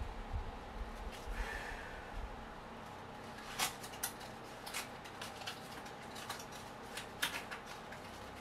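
Handling noises while unboxing: a few low thuds at the start, then scattered light clicks and taps of parts and packaging being handled, over a steady low hum.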